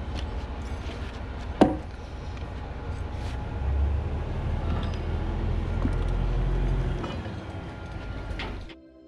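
Log-building work: a steady low rumble with scattered light knocks and clicks, and one sharp knock with a short ring about a second and a half in. It cuts off suddenly just before the end, leaving faint music.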